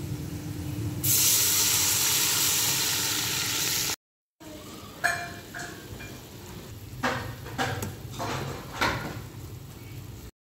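Hot oil sizzling in an aluminium kadai with browned onions: a loud sizzle starts suddenly about a second in and runs for about three seconds. After a short break, quieter frying follows, with a few scraping and clicking strokes of stirring.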